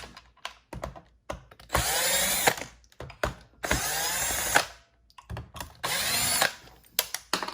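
Power drill with a long-shank T15 Torx bit backing out the wheel screws of a robot vacuum, in three short runs that spin up and wind down, with small clicks in between.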